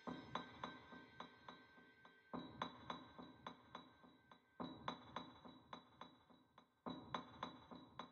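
Sampled percussion from the Roadtrip Percussion library playing a quiet rhythmic pattern: about four hits a second with metallic ringing, in phrases that restart with a stronger hit every couple of seconds.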